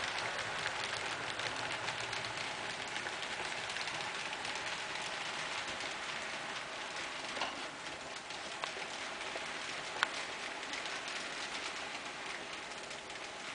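N scale model passenger train running on track: a GE 70-Tonner on a Tomy-Tec mechanism pulling a 12-car Kato Daylight set, its many small wheels making a steady fine rattling hiss that eases off a little. A few sharper clicks stand out in the second half.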